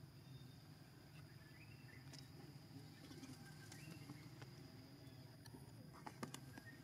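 Near silence: faint forest ambience with a steady hum, a few soft high chirps, and a cluster of sharp clicks near the end.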